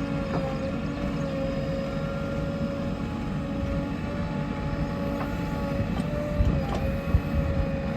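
JCB 3DX backhoe loader's diesel engine running steadily with a steady whine over its rumble, and a couple of short knocks near the end.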